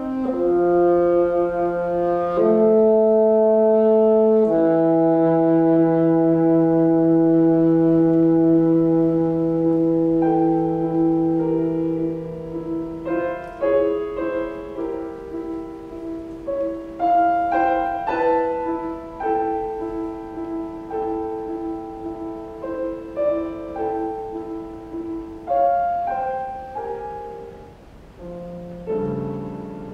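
Saxophone and piano playing a slow classical passage: long held saxophone notes at first, then shorter, quieter phrases over piano chords from about halfway.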